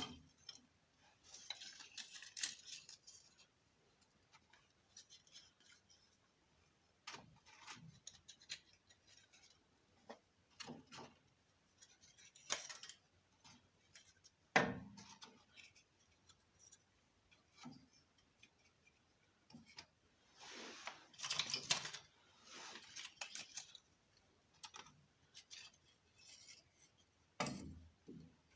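Scattered small clicks, knocks and scrapes of hand tools and metal being handled, with a few longer scraping passes, the longest from about 21 to 23 seconds in.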